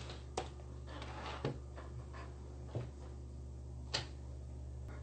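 Faint handling noise on the microphone: four short, soft clicks or taps spaced about a second apart over a steady low hum.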